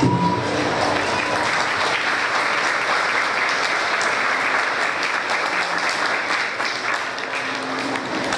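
Audience applauding, many people clapping steadily, tailing off a little near the end.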